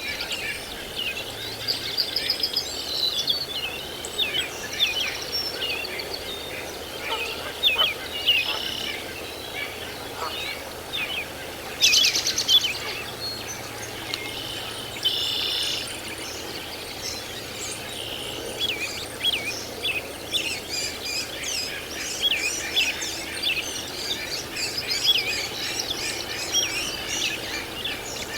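Birds chirping busily in many short, quick calls, with a louder, harsh call about twelve seconds in and a buzzy call a few seconds after that.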